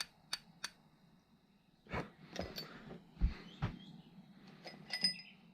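Metal tools and parts clinking and knocking during hands-on work: a few sharp clicks at first, a handful of dull knocks from about two seconds in, and a light metallic clink near the end.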